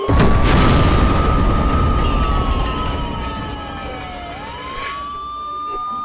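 A loud explosion boom right at the start, its rumble dying away over about three seconds, under a wailing emergency-vehicle siren. The siren rises, holds, slides slowly down, then rises again a little after four seconds in.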